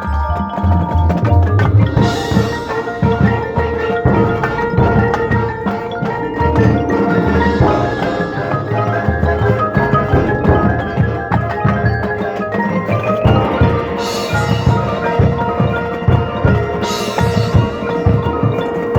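High school marching band playing its show music, with front-ensemble mallet percussion such as marimba and xylophone over drums and sustained wind notes. Bright cymbal crashes come about two seconds in and twice near the end.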